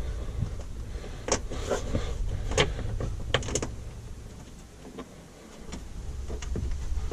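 Polaris RZR XP 1000's hard plastic center console panel being pressed down by hand: scattered clicks and short creaks of plastic against plastic as it seats, over a steady low rumble.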